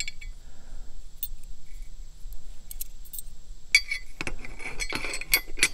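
Steel pin and steel tube bracket of a gate opener arm clinking together as the pin is fitted: a few light clicks at first, then a busier run of metal clinks and rattles over the last two seconds.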